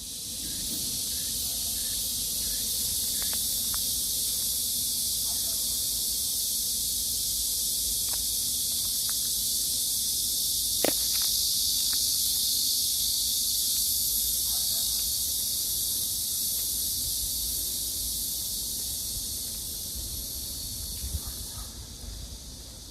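Insect chorus: a loud, steady, high-pitched hiss that fades out near the end. One sharp click sounds about eleven seconds in.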